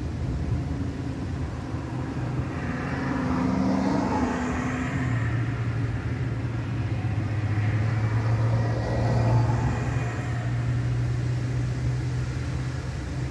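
Road traffic: two vehicles pass one after the other, their tyre and engine noise swelling and fading, with a low steady hum through the second half.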